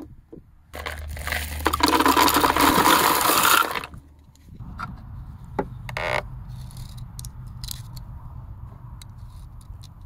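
Loud scraping rustle for about three seconds, then small, sharp metallic clicks at irregular intervals as .22 LR cartridges are pressed into a Ruger MKII pistol magazine.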